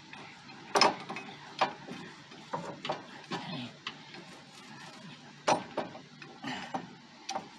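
Irregular metallic clicks and clinks of steel hardware being fitted by hand to a tow-bar mounting bracket: a bolt, lock washer and locking nut being handled and threaded on. The sharpest clicks come about a second in and again past halfway.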